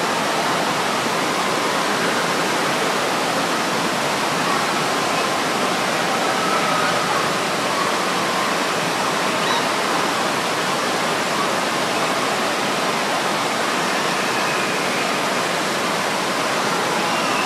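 Water rushing steadily as it is pumped in a thin sheet up the slope of a surf-simulator wave ride, with spray breaking at the top.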